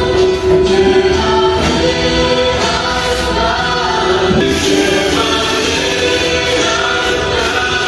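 Background music with a choir singing, in a gospel style.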